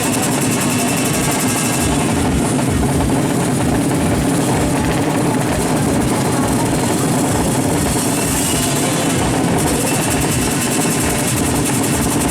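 Drag-bike motorcycle engines running steadily, with voices mixed in.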